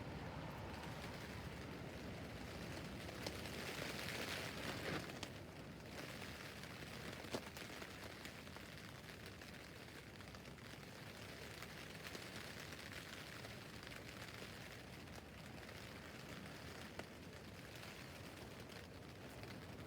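Rain falling on a tent roof: a steady patter of drops on the fabric, with a few louder single drops and a slightly heavier spell about four seconds in.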